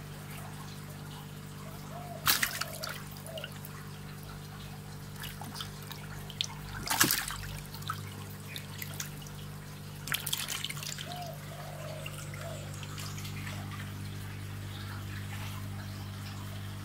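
Water splashing and sloshing in a fish tank, with three louder splashes about two, seven and ten seconds in and lighter trickling between them, over a steady low hum.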